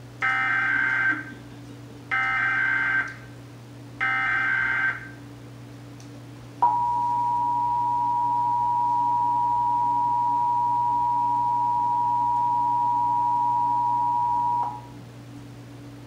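Emergency Alert System SAME header: three short bursts of warbling data tones about two seconds apart, followed by the EAS two-tone attention signal (853 and 960 Hz) held steady for about eight seconds and cutting off near the end, played through a television's speaker.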